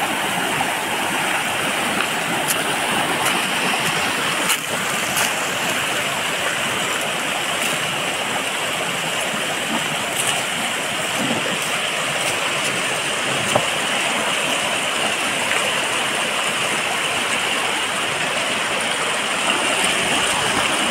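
Fast rocky mountain stream rushing over boulders in a steady full whitewater rush, with a few faint clicks.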